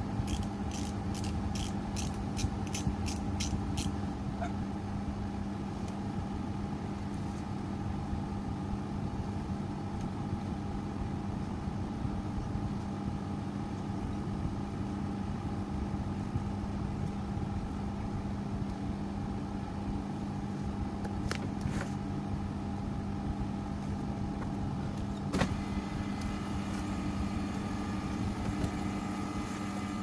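Carrier 38QCA outdoor air-conditioner condensing unit, about 30 years old, running: a steady hum of the compressor and condenser fan. In the first few seconds there is a run of quick clicks, about three a second, and a couple of single sharp clicks come later.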